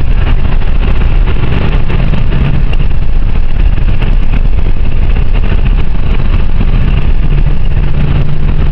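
Car driving in a blizzard: a loud, steady rush of engine, tyre and wind noise, with a low engine hum that grows steadier near the end.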